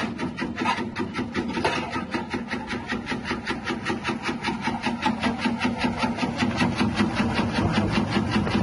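Electric chip-slicing machine with a small motor-driven rotating blade disc cutting peeled roots into wavy chips. It makes a fast, even, rasping chop of several cuts a second that runs steadily through.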